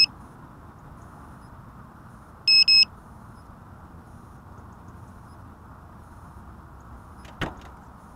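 Loud, close electronic beeps: one short beep, then a quick double beep about two and a half seconds in, over a steady low hiss. A single sharp click comes near the end.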